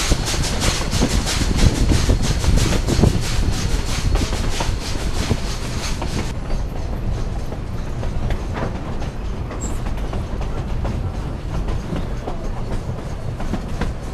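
Narrow-gauge steam train running along the track, heard from a passenger car: a low rumble with rapid, evenly spaced clicking. About six seconds in the sharp clicking drops away suddenly, leaving a duller, steady rumble.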